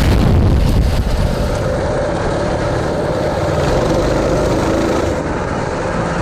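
Three-engine mini bike's three Tillotson 212 single-cylinder four-stroke engines running together under throttle as the bike rides a dirt trail.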